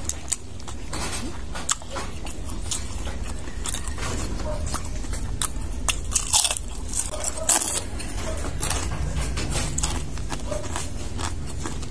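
Close-up crunching and chewing of crispy deep-fried pork intestine (chicharon bulaklak), a run of sharp crunches with the loudest bites around six to eight seconds in.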